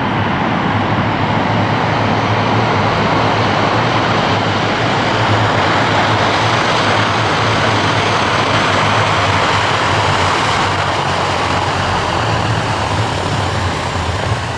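Lockheed L-1049 Super Constellation's four Wright R-3350 radial piston engines running at power in a loud, steady drone during a ground roll.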